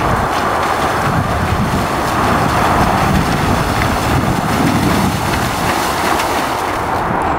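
Steady wind noise buffeting the camera microphone, a loud even rushing that covers everything else.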